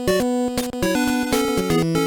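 Background music: an upbeat electronic track with stepping synth notes over a steady beat.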